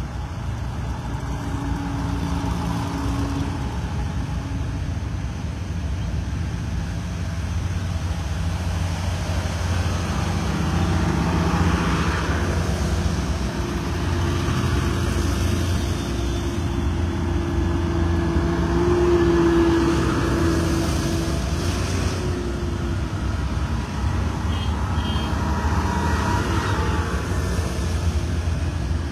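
Farm tractors and trucks driving past one after another, engines running in a steady low rumble that swells as each vehicle goes by, loudest about twenty seconds in.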